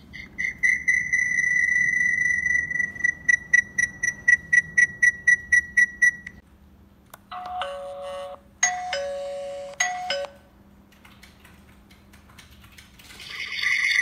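Smart video doorbell and its phone app sounding electronic tones: a high steady tone that breaks into rapid beeping, then a two-note ding-dong chime played twice. Near the end the high tone rises again.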